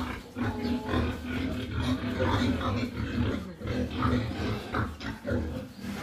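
A pen of grown domestic pigs grunting, many short grunts following one another and overlapping.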